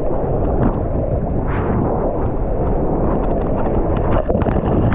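Rushing water from a surfboard riding across a breaking wave, with wind buffeting the action camera's microphone. The rush is loud and steady, with a brief hiss of spray about a second and a half in.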